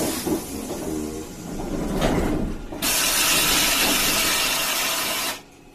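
Compressed air hissing loudly from the streetcar's pneumatic system for about two and a half seconds, then cutting off suddenly. Before it comes a low rumble and a single sharp clunk about two seconds in.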